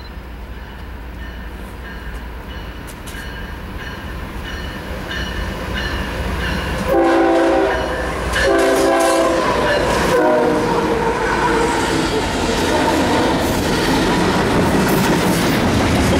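Union Pacific diesel-hauled double-stack container train approaching, its rumble growing steadily louder. About seven seconds in, the locomotive's multi-chime horn sounds a chord: two long blasts, then a shorter one. The rolling roar and clickety-clack of the stack cars passing close by follow.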